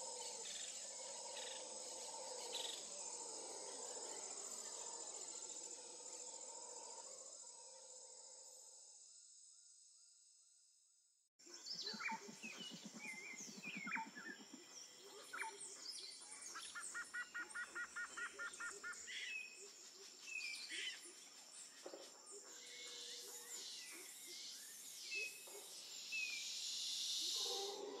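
Faint nature ambience. A steady droning hum fades away over the first ten seconds and stops. After a moment of silence, birds chirp and trill over a thin, steady high whine.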